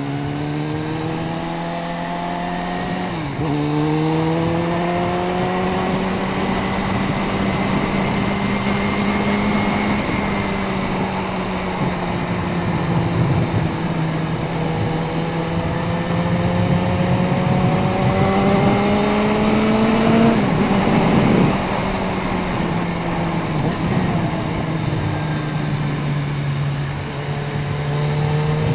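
Suzuki Bandit 650N inline-four motorcycle engine under way, pulling up through the revs. Its pitch drops sharply at a gear change about 3 seconds in and again about two-thirds of the way through, then climbs again.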